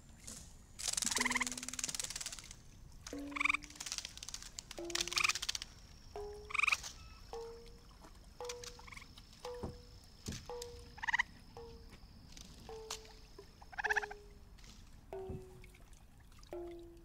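Sonic Kayak's sonification output: a string of short, frog-like croaking notes, about one a second. Their pitch climbs over the first half and falls back toward the end as the sensor readings change. Splashy water noise comes in between.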